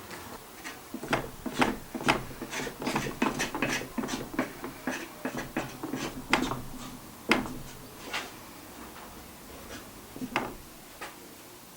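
Wooden knocks, clicks and light rubbing, as of wood pieces being handled and set down, in quick irregular succession through the first eight seconds, then a few scattered knocks.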